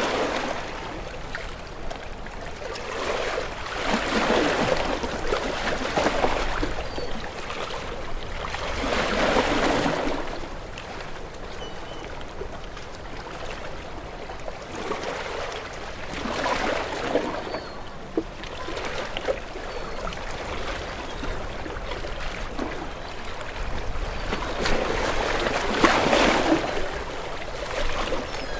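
Gentle waves washing in and drawing back. Each wash swells up as a soft rush of water and fades, one after another every few seconds.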